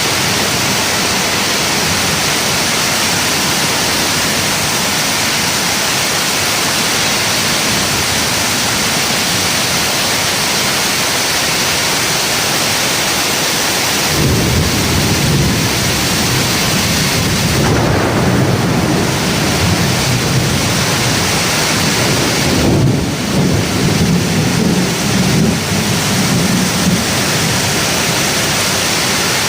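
Heavy rain with strong wind, a steady hiss throughout. From about halfway, gusts of wind add a low, uneven rumble that comes and goes.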